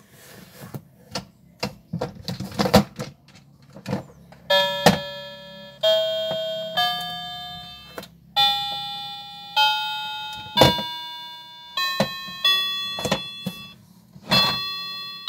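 Plastic clicks and knocks for about the first four seconds, then a Lightning McQueen-shaped toy keyboard sounding single electronic notes as its keys are pressed, about one a second, each fading after the press and climbing mostly upward like a scale.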